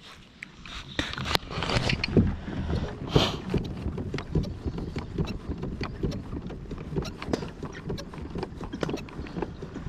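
Irregular knocks and rattles from fishing gear being handled aboard a kayak. They start about a second in and come thick and uneven from then on.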